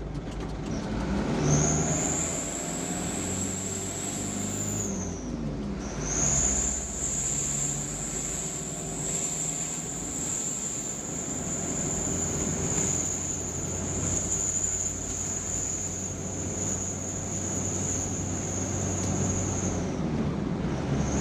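A truck driving on the road, its engine humming steadily. A high thin whine rises in about a second and a half in, breaks off briefly around five seconds, and then holds steady until near the end.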